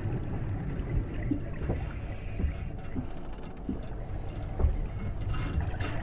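Steady low rumble of moving water with scattered small pops and gurgles, the running pumps and bubbling of a saltwater reef aquarium.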